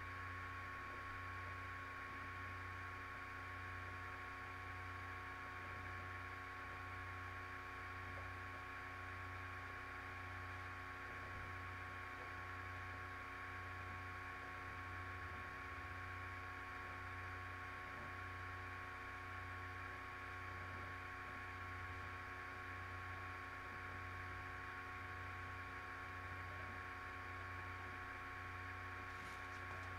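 Steady electrical hum and hiss: several fixed tones over a low hum that pulses evenly, with nothing else happening.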